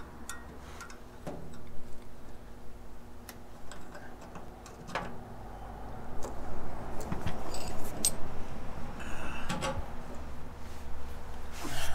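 Scattered light metallic clinks and taps of hand tools and small engine parts being handled, busier in the second half, over a steady low hum.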